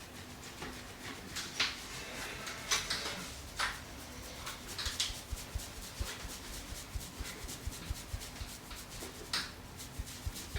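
A barber's hands working close to the microphone on a customer's head and skin: rubbing, with a few sharp strokes, and from about halfway a run of soft taps, roughly two a second.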